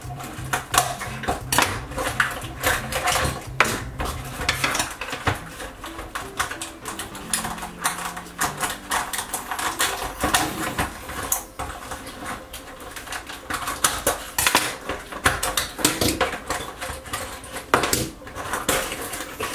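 Clear plastic blister packaging crackling and clicking as it is handled and pried open to pop out small diecast toy cars, a dense irregular run of crinkles and clicks.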